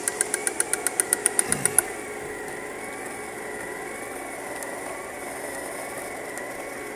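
3D printer printing: rapid regular clicking, about eight a second, for the first two seconds, then a steady whine of its stepper motors that wavers gently in pitch.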